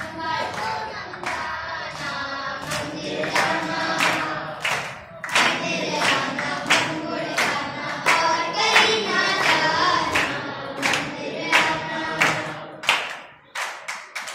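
A group of children singing a song together in unison, clapping their hands along with it.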